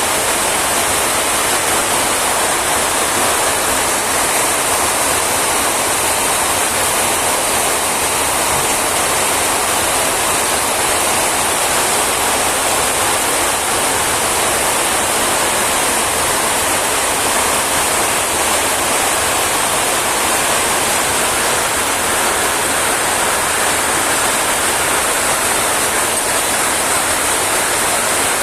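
Rain falling steadily: a dense, even hiss with no breaks.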